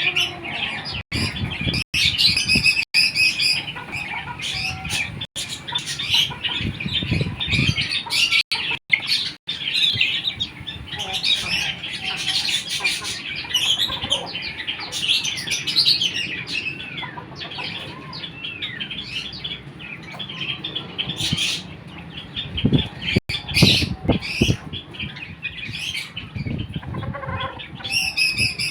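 A flock of Silkie chickens chirping, peeping and squawking continuously, with many overlapping short high calls and occasional low thuds.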